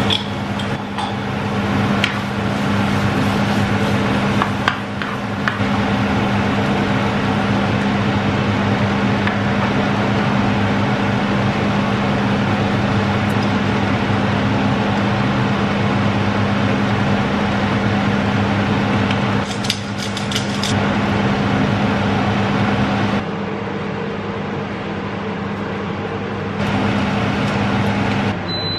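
Food sizzling in a non-stick frying pan on an induction hob, over a constant low appliance hum. A few clinks and taps of a jar and utensils against the pan come in the first few seconds, and the hum cuts off near the end.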